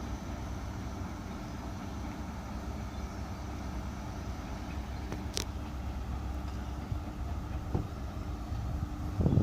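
Steady low hum of an idling diesel train engine, with a sharp click about five seconds in and a short thump near the end.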